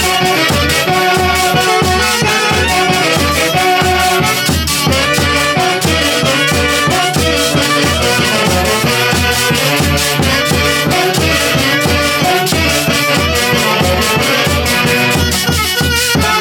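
Andean orchestra playing a huaylíjia: a melody over an even bass beat of about three pulses a second.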